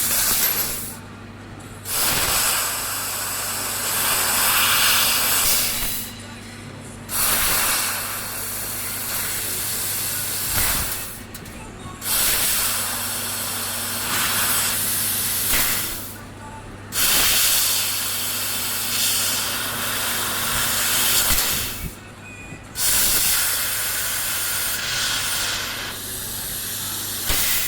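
Mixed CO2 laser cutting machine cutting stainless steel: a loud hiss that runs for several seconds at a time and stops briefly five times, over a steady low hum.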